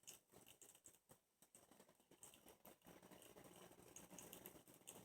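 Near silence: room tone with a few faint scattered ticks, and a faint steady hiss from about three seconds in.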